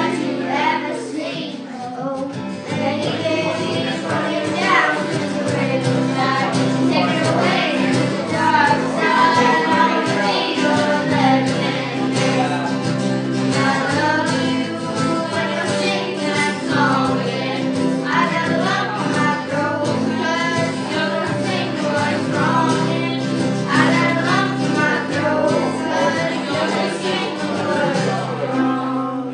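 Live music: a group singing a song over held instrumental chords.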